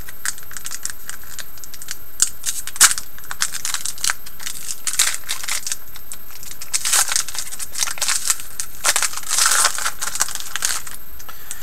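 A trading card pack's foil wrapper crinkling and crackling as it is torn open and handled, in irregular rustles and sharp crackles. The crackling is loudest about three seconds in and again between about nine and ten seconds.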